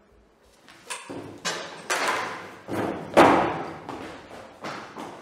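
Running footsteps on a hard tiled floor in an echoing classroom: a quick run of thuds and scuffs, loudest about three seconds in.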